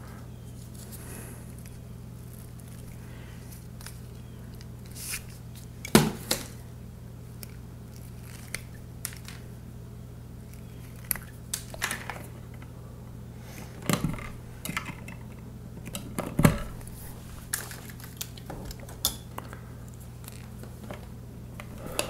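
Wire strippers cutting and stripping short scrap pieces of electrical wire, with the wires handled: scattered sharp clicks and snips, three louder snaps among lighter ones, over a steady low hum.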